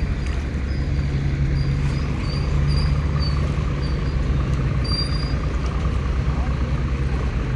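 A boat's engine running steadily with a low hum, heard close by on the river.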